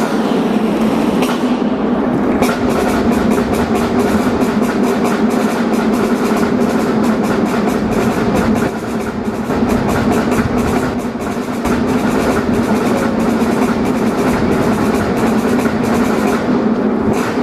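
Live marinera norteña music from a stage band, with held notes and a busy, rapid percussion beat.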